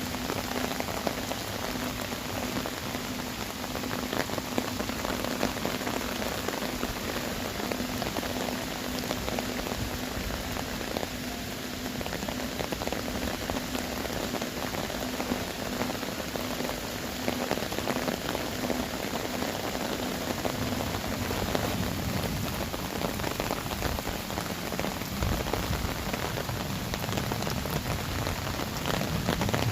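Heavy rain pouring steadily onto earthenware crocks (onggi jars) and the stone platform they stand on, a dense patter of drops.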